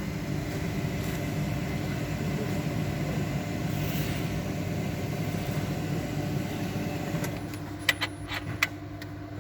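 Machinery running with a steady hum, and a few sharp clicks near the end.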